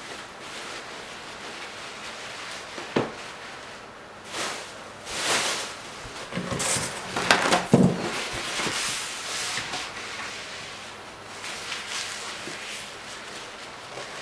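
Paper napkins and paper towels being crumpled and rustled in irregular bursts while a wooden cutting board is cleared and wiped, with a sharp knock about three seconds in and a louder thump near the middle.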